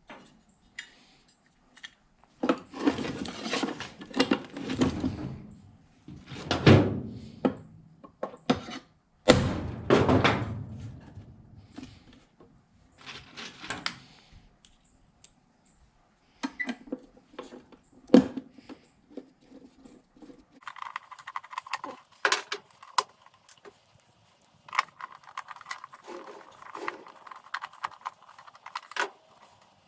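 A self-retracting power cord reel being handled during repair: irregular bursts of plastic and metal knocking and rattling. About two-thirds of the way through, a steady noise with many quick clicks takes over.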